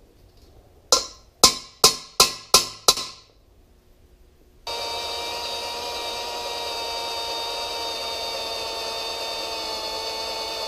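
Six sharp metal taps in quick succession, each ringing briefly, like a hammer striking the steel square tubing. About halfway through, a drill press starts up and runs steadily with a steady whine, its bit cutting into the steel tubing.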